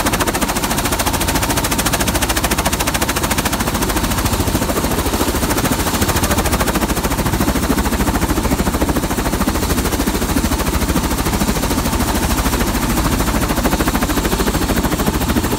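Helicopter running close by with its rotor turning, a loud, rapid, steady chopping.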